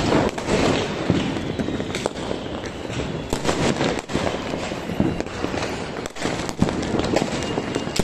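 Diwali firecrackers going off all around: a constant crackle of many distant bursts, with sharper single bangs about once a second.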